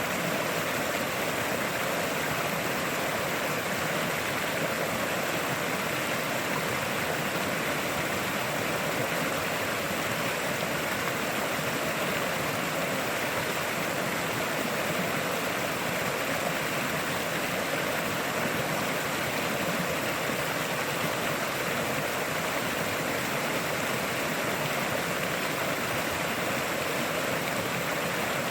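River water flowing and rushing over rocks in a steady, unbroken stream.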